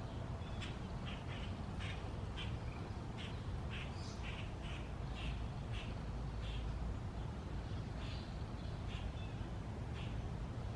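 A bird calling over and over in short, high chirps, about two a second, over a steady low rumble.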